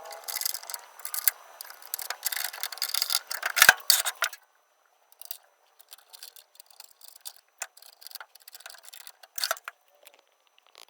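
Hand tools clicking and scraping against metal hardware while a handle is fastened onto a tool chest. A busy run of clicks and scrapes for about four seconds, then only scattered light clicks.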